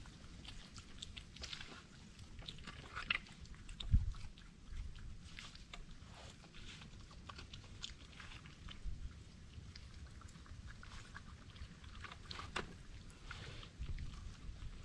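Wild animals chewing and crunching food, with scattered small clicks and smacks, and a low thump about four seconds in.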